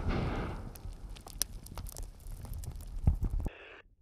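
The rumble of a controlled explosion destroying IEDs dying away, with scattered clicks and thuds of stones and debris raining down. It cuts off suddenly about three and a half seconds in.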